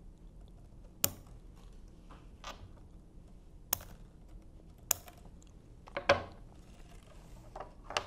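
Sharp scissors snipping off the excess copper conductors of a twisted-pair Ethernet cable at the back of a connector insert: three crisp snips spread over the first five seconds, with a few softer handling clicks after.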